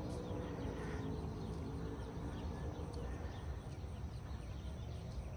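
E-flite Carbon Cub SS electric RC plane's motor and 15x7 wooden propeller humming faintly at low throttle on the landing approach, the tone sinking slightly and fading after about three seconds, over a steady low rumble. Faint bird chirps.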